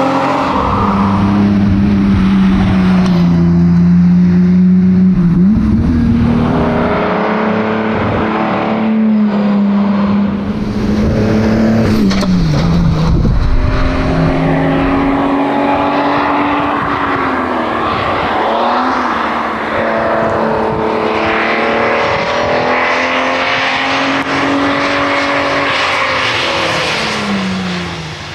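1961 Austin Healey 3000 Mk 2's straight-six engine running hard under load at rally pace. Its pitch holds high, drops suddenly and climbs again several times as the car is shifted or lifted off for corners, with tyre and road noise underneath.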